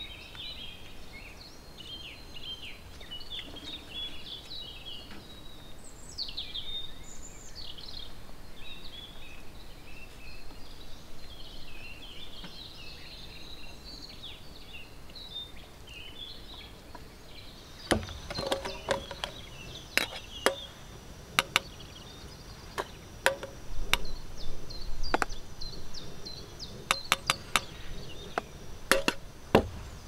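Small songbirds chirping and singing for the first half. From about eighteen seconds in, irregular sharp clicks and knocks of tableware and camp gear being handled on a wooden table.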